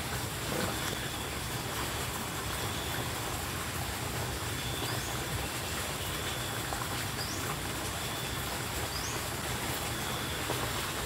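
Steady rushing outdoor background noise, with a few faint, short, rising high chirps about halfway through and later.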